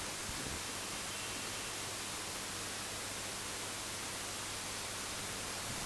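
Steady hiss of background noise in the recording, with no distinct sounds.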